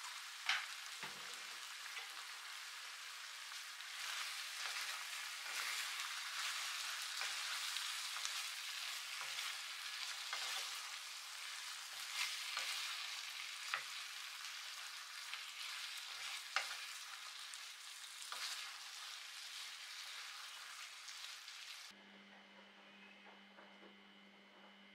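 Chicken wings sizzling in sauce in a frying pan while a wooden spoon stirs them, knocking against the pan a few times with sharp clicks. Near the end the sizzling cuts off, leaving only a faint low hum.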